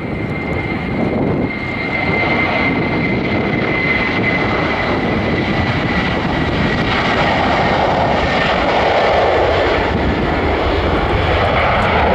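Airbus A330-300 twin-engine jet airliner at takeoff thrust during its takeoff roll: a loud, steady jet engine rush with a thin high fan whine. The whine fades after about five seconds while the rush grows fuller and slightly louder.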